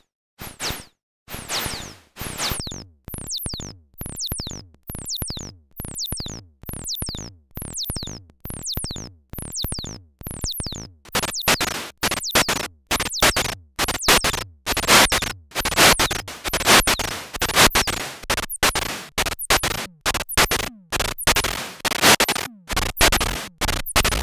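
Moog DFAM analog percussion synthesizer playing a sequenced pattern of noisy electronic drum hits, about two a second, each with a falling pitch sweep. About halfway through the hits get louder and denser.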